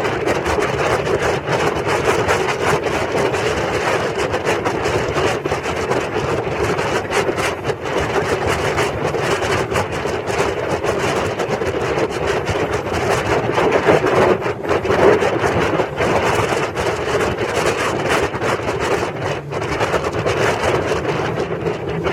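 Motorboat engine running steadily under way, mixed with the rush of wind and water and wind buffeting the microphone.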